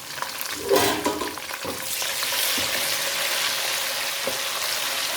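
Onions sizzling in hot palm oil in a pot, with a knock and a louder burst of sizzling about a second in, then a steady hiss of frying.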